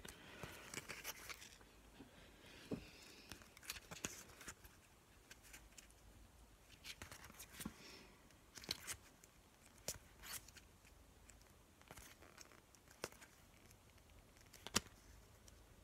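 A stack of baseball trading cards being flipped through by hand, each card slid from the front to the back: faint scattered slides, rustles and small clicks of card stock, with the sharpest snap near the end.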